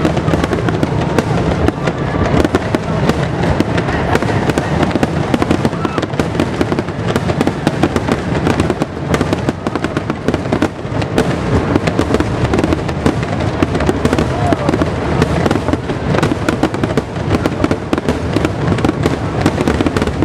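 Fireworks display: a dense, continuous barrage of bangs and crackling explosions, shell after shell with no break.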